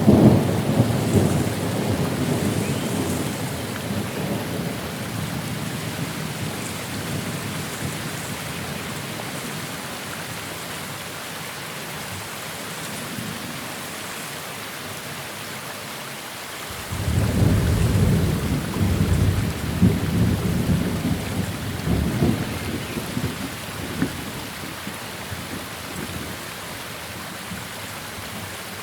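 Thunderstorm: steady rain, with one roll of thunder rumbling away over the first few seconds and another breaking about seventeen seconds in and rolling on for several seconds before fading.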